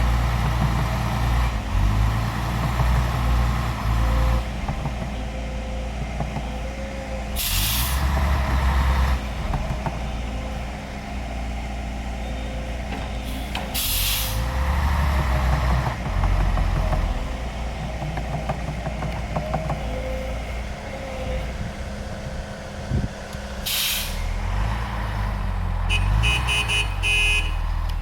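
Heavy diesel engines of recovery machinery running and labouring, rising and falling in load. Three short hisses of released air, like air brakes, about a third of the way in, near the middle and near the end, and a quick rapid beeping just before the end.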